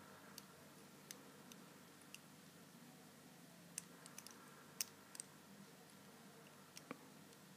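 Near silence with faint, scattered small clicks and taps, about a dozen, from a padlock and tools being handled.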